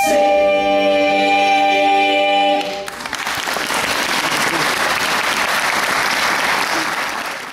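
A mixed a cappella vocal ensemble holds a final sustained chord for nearly three seconds. The chord ends and applause takes over, which cuts off suddenly at the very end.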